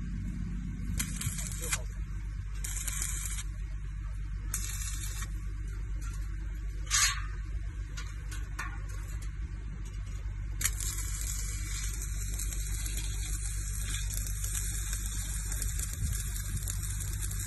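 Stick (arc) welding on a steel grating: the arc crackles and hisses in a few short strikes during the first seven seconds, one louder near seven seconds, then burns steadily from about ten seconds in. A steady low hum runs underneath.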